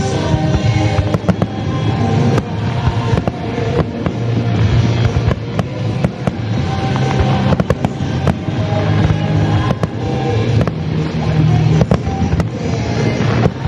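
Aerial fireworks bursting and crackling in quick, irregular succession, with music playing underneath.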